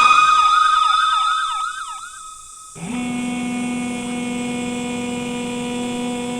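Emergency-vehicle sirens: a fast up-and-down yelp over a steady held wail, fading out after about two seconds. About three seconds in, a steady low horn-like tone starts and holds.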